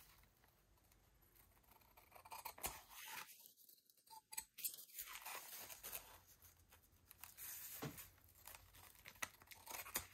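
Faint, irregular snipping and paper rustle as scissors cut around a dried, glued book page.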